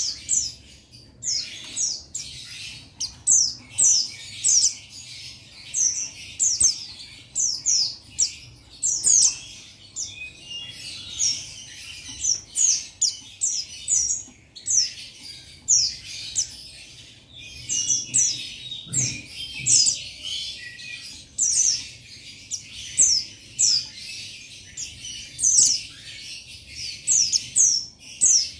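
Buxtoni white-eye (pleci buxtoni) male calling: a rapid, continuous run of high, thin, sharply falling chirps in clusters of several notes with short breaks between them.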